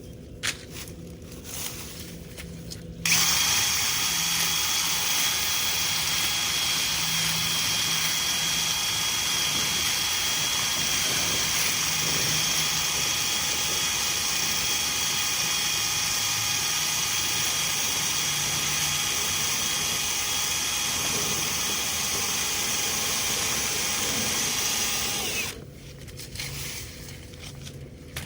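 A single knock, then about three seconds in a power drill starts and runs steadily with a constant high whine for over twenty seconds while the dryer vent is cleaned out, stopping near the end.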